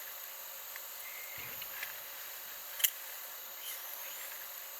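Steady high-pitched buzz of insects, with a single sharp click a little past the middle and a few brief faint chirps.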